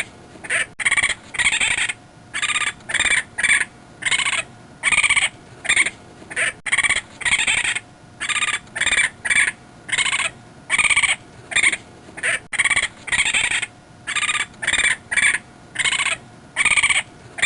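Wild raccoon calling in a long run of short, high-pitched calls, about one and a half to two a second, with brief pauses between them.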